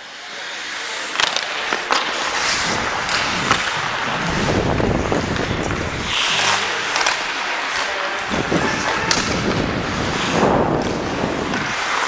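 Hockey skates scraping and carving on ice during play, with a few sharp clacks of sticks and puck.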